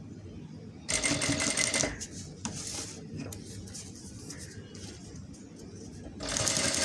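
Industrial flatbed sewing machine stitching a zipper onto a fabric band. It runs in two short bursts of about a second each: the first about a second in, the second near the end.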